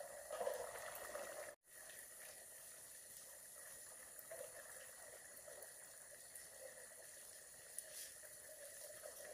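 Fish curry simmering faintly in an aluminium pot on the stove, with soft low bubbling. The sound cuts out briefly about a second and a half in.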